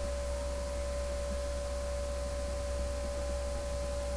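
Steady electrical hum with a constant mid-pitched tone and a light hiss underneath: background noise of the recording chain.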